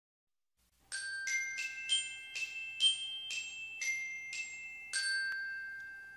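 Short intro jingle of bright, bell-like struck notes, about ten in quick succession starting about a second in, the last one ringing out and slowly fading.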